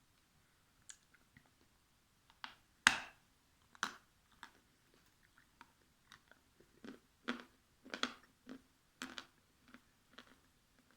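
Pieces of dried edible clay crunching as they are bitten and chewed: a run of irregular sharp crunches, the loudest about three seconds in.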